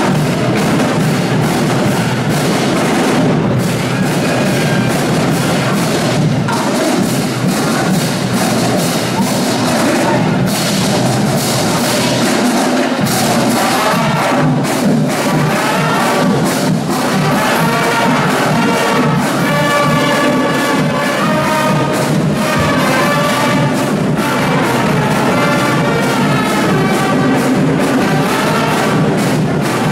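Marching band playing, with drums and percussion driving a steady beat throughout and brass playing a melody over them from about halfway through.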